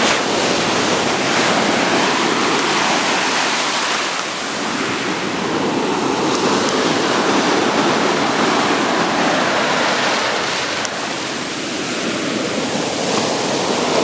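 Ocean surf breaking close by and washing up the shore: a continuous rush of foaming water that swells and eases slightly as waves come in.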